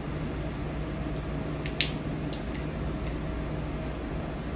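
Plastic candy wrapper crinkling between fingers as a piece of candy is unwrapped: a few short, sharp crackles, the loudest just under two seconds in, over a steady low hum.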